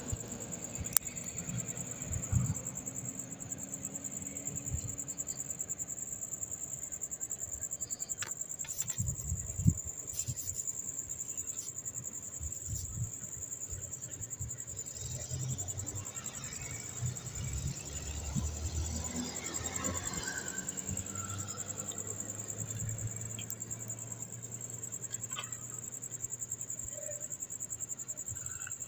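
Steady high-pitched chirring of crickets, with a few light clicks from rocker arms being set into a Toyota 2TR-FE cylinder head.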